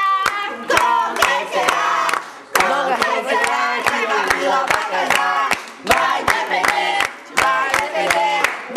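A group of people singing a birthday song together, clapping along in time at about two claps a second.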